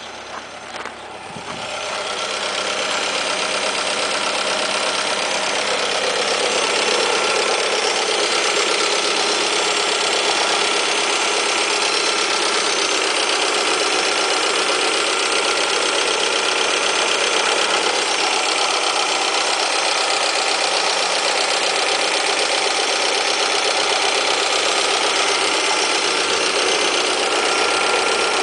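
Alfa Romeo 156 1.8 Twin Spark inline four-cylinder petrol engine idling steadily while still cold. It is heard close up with the bonnet open, growing louder over the first few seconds.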